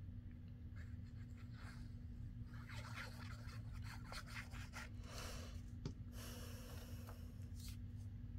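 Faint rubbing and rustling of paper as the nozzle of a squeeze bottle of liquid glue is run along the edges of a small paper piece, with one light tick about six seconds in. A steady low hum lies underneath.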